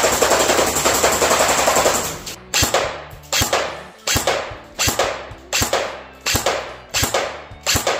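Specna Arms JA09 electric airsoft AK rifle firing. A rapid full-auto stream of pops runs for about two seconds, then single semi-automatic shots follow about every three-quarters of a second.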